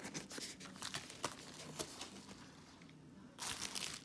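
Bubble wrap crinkling and rustling as it is pulled off a small box, with scattered light clicks and a louder burst of crinkling near the end.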